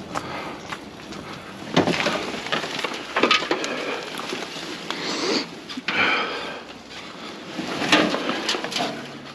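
Plastic-tray wheelbarrow being tipped and handled among yard rubble and brush: irregular clatter and scraping, with louder knocks about two, three and a half, six and eight seconds in.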